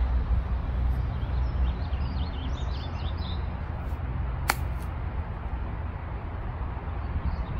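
A single sharp click of a golf iron striking the ball about four and a half seconds in, over a steady low rumble, with faint bird chirps in the middle.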